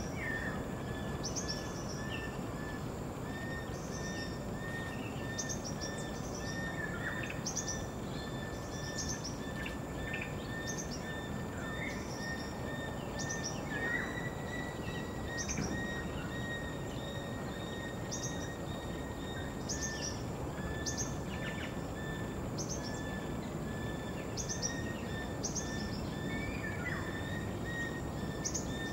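Forest ambience: a steady high insect drone with small birds chirping, short high chirps repeating about once a second, over a constant low background hiss.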